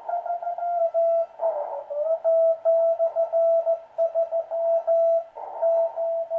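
Morse code received on a Heathkit SB-301 shortwave receiver: a CW station sending by straight key, heard as an on-off tone of about 700 Hz through the receiver's 400 Hz crystal filter, over band hiss. About a second and a half in, the tone briefly dips in pitch and slides back up.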